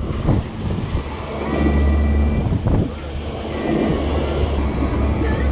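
Twin Mercury V8 300 outboard engines running steadily at trolling speed, with the wash of the boat's wake and wind buffeting the microphone.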